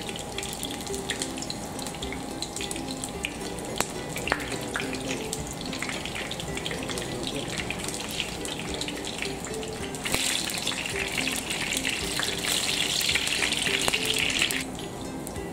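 Eggplant pieces sizzling and crackling in shallow hot oil in a frying pan. The sizzle grows louder about ten seconds in and drops back shortly before the end.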